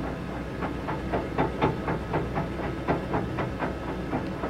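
Chinese diesel air heater starting up: a steady low hum from its fan with rapid ticking at about four to five a second from the fuel dosing pump, which has just kicked in while the glow plug is still heating.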